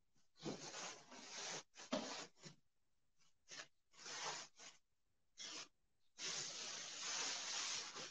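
Irregular rustling and rubbing noises in several separate bursts, the longest running for about two seconds near the end.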